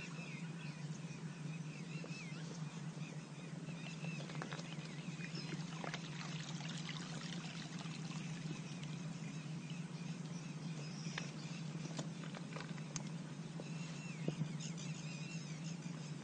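Water sloshing and trickling as a bucket and hand net are dipped and lifted in shallow river water, over a steady low hum, with short wavering chirps now and then.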